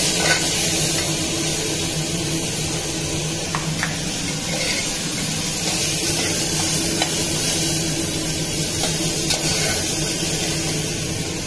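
Chopped tomatoes, onions and garlic sizzling as they fry in an aluminium pressure cooker on a gas burner, stirred with a slotted spoon: a steady hiss with faint scrapes of the spoon in the pan.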